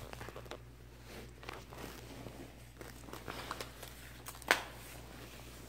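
Old plastic cell phones being shuffled and pushed around by hand, small clicks and rustles with one sharp click about four and a half seconds in.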